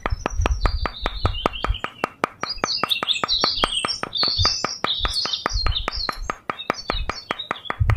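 Birds chirping and tweeting over a steady rapid ticking of about five clicks a second, with a few dull low thumps from small wooden posts being knocked into sand.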